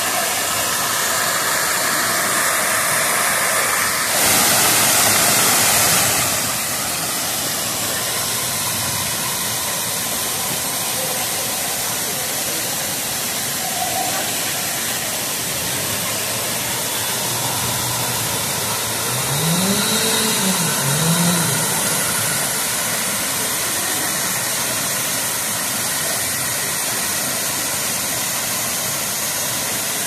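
A full waterfall rushing steadily, with a louder surge of the rush for about two seconds, four seconds in. About twenty seconds in, a short sound rises and falls in pitch twice over it.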